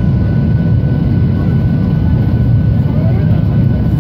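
Cabin noise of a jet airliner on final approach, heard from a seat over the wing: a steady low rumble of the engines and rushing air, with faint steady whining tones above it.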